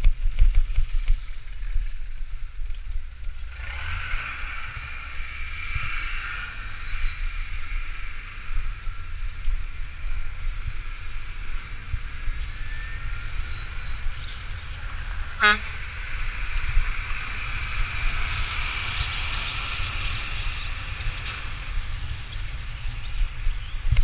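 Wind rumbling on a moving action camera's microphone, with a steady hiss of road and traffic noise that comes in a few seconds in. One short, sharp pitched blip about fifteen seconds in.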